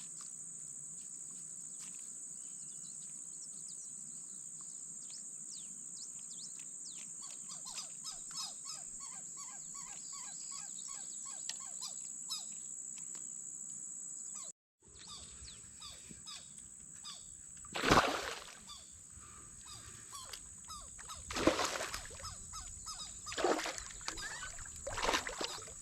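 A steady high-pitched drone of insects with small bird chirps. After a brief dropout about halfway, there are four louder knocks or rustles, the loudest a few seconds later.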